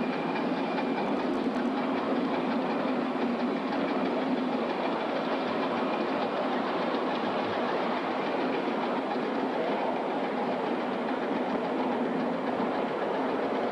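Atlantic-type live steam locomotive running, a steady rushing noise with no breaks.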